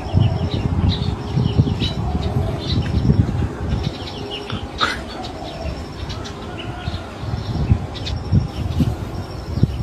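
Small birds chirping repeatedly in the background over an irregular low rumble, with one sharp click about five seconds in.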